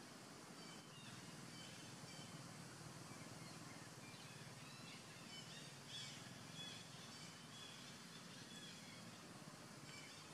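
Faint outdoor ambience with short, high-pitched animal chirps in scattered runs, loudest about six seconds in.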